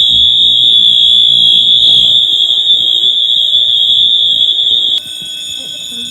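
Gamewell building fire alarm sounding a loud, continuous high-pitched tone. About five seconds in it suddenly drops in level and takes on a more ringing character with more distinct overtones.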